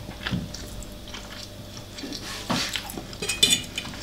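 Close-up eating sounds: wet chewing and mouth noises over spicy Korean noodles, with a few short metallic clinks of cutlery against the dish near the end.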